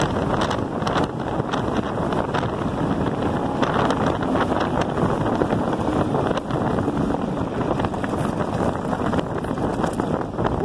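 Wind buffeting the microphone over the noise of an electric bike's tyres rolling on loose gravel, with a constant patter of small clicks and rattles from the stones and the bike.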